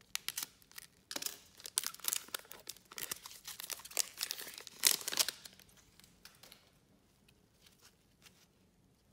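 Foil wrapper of a trading card pack being slit and torn open, crinkling and tearing for about five seconds, with the loudest rip about five seconds in. Then only faint rustles as the cards are handled.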